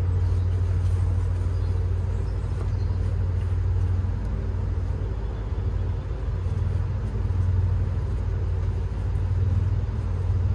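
Steady low hum of an engine running at idle, even and unchanging throughout.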